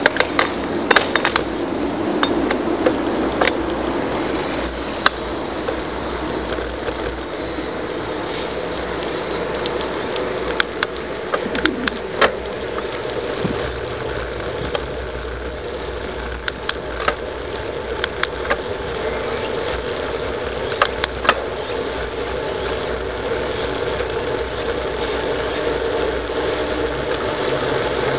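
Bicycle coasting fast down a paved road: steady wind rush and tyre rumble on the asphalt, with sharp clicks and rattles now and then.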